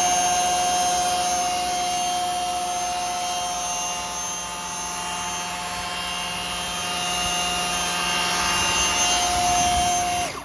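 Electric motor of a 6S-powered four-wheel-drive RC car whining at a steady high pitch as the wheels spin in a burnout, with the tyres scrubbing on asphalt. The sound stops abruptly near the end.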